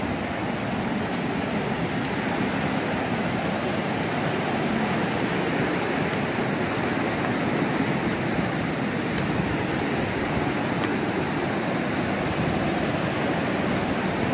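Steady rush of a rocky stream's rapids, growing slightly louder.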